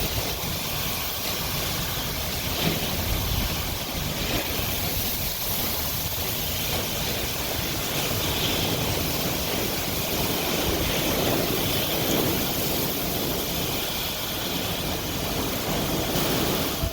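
Steady, loud noise of heavy wind-driven rain in a severe thunderstorm, with wind buffeting the microphone.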